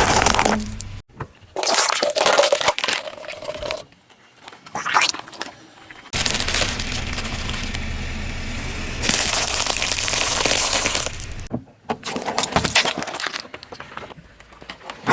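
Things cracking and crunching as they are crushed under a car's tyres, in several short segments that start and stop abruptly.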